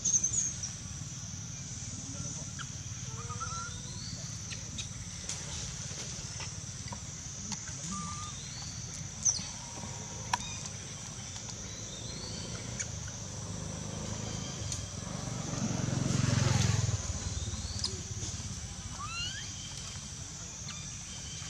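Outdoor roadside ambience: a steady high hum and low rumble with scattered short chirps and a few sharp clicks. A passing vehicle swells to the loudest point about three-quarters of the way through, then fades.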